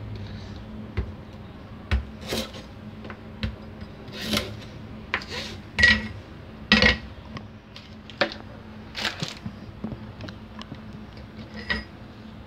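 Scattered knocks and light metallic clinks of kitchen utensils being handled at a stainless-steel sink and a plastic cutting board, coming every second or two, over a faint steady hum.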